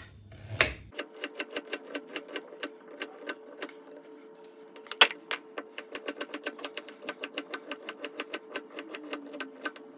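Kitchen knife slicing a carrot into thin rounds on a wooden cutting board: a fast, even run of knife taps on the board, about five to seven a second, with a short pause and one louder knock about five seconds in.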